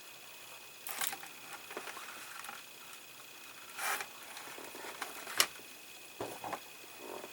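Hands handling small plastic model-kit parts and flexible hoses: scattered rustles and scrapes, with one sharp click about five seconds in.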